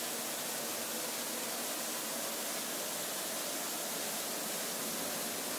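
Steady, even hiss with no distinct events: the background noise of the recording.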